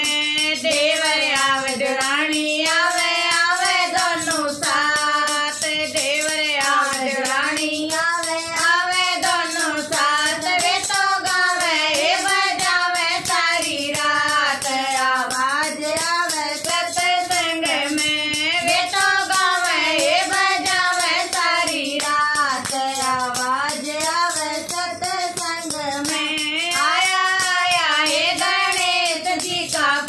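Women singing a Hindi devotional bhajan to Ganesh together, kept in time by steady hand clapping and the clack of wooden clappers.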